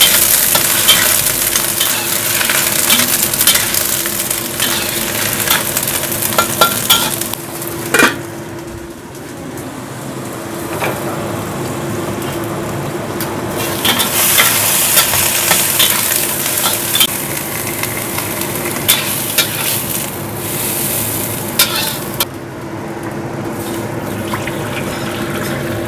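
Shredded cabbage and carrot sizzling as they are stir-fried in a carbon-steel wok, the metal spatula scraping and clinking against the wok, with one sharp clank about eight seconds in. A second loud stretch of hissing follows in the middle, and water is poured into the wok near the end, over a steady low hum.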